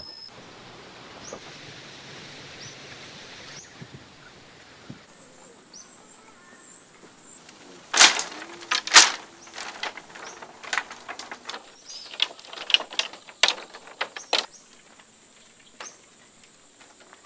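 Dry bamboo poles and sticks knocking and clattering as they are handled and laid on a hut's bamboo roof frame: two sharp knocks about halfway through, then a run of lighter clacks. Before that, only a soft steady hiss.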